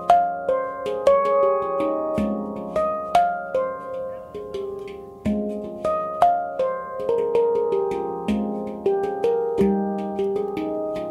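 F minor handpan played by hand: a steady stream of struck notes, several a second, each one ringing on and fading under the next.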